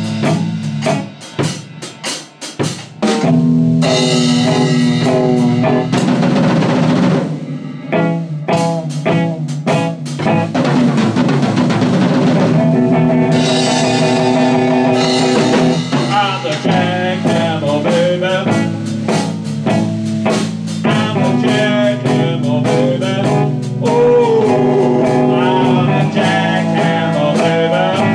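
Instrumental break in a blues jam: electric guitar playing over a drum beat, with some bent notes.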